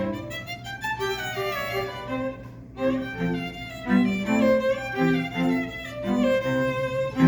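String quartet playing: violins, viola and cello bowing a passage of short, detached notes in several parts together.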